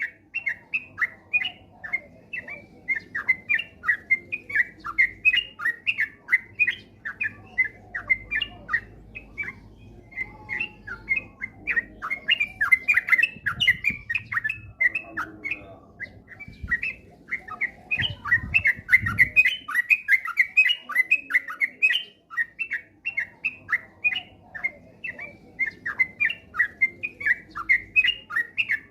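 Yellow-vented bulbul (trucukan) singing a continuous, rapid run of bubbly chattering notes with hardly a break, the fast 'ropel' song used as a lure recording.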